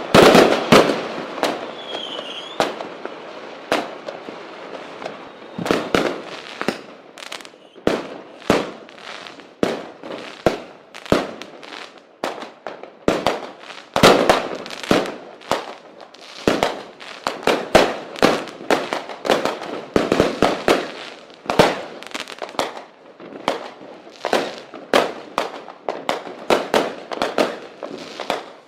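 Fireworks going off in an irregular barrage of bangs and crackling pops, several a second at the busiest moments, with a brief whistle about two seconds in.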